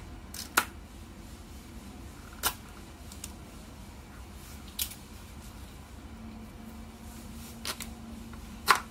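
Bluedio T7 headphones clicking as the headband slider and earcups are adjusted by hand: five sharp clicks at irregular intervals, the loudest near the end.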